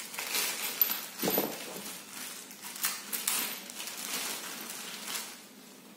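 Clear plastic bag and wrapping crinkling and rustling in irregular bursts as small parts are unwrapped by hand.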